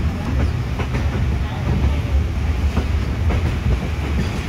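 Passenger train running along the track, heard from inside the carriage: a steady low rumble with irregular clacks of the wheels over the rails.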